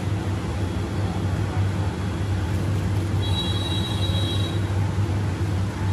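Steady low engine rumble, with a brief high-pitched two-note tone a little past three seconds in.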